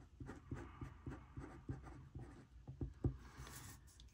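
Micron fineliner pen writing on planner paper: a quick, irregular run of faint pen strokes as words are written out.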